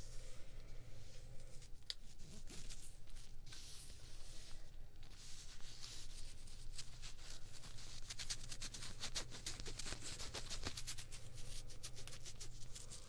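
Fingertips rubbing and scratching over a velvet choker and the skin around it, close to the microphone: a dense run of fine scratchy strokes with a brief pause partway through. Near the end the fingers handle the metal sun pendant. A low steady hum sits underneath.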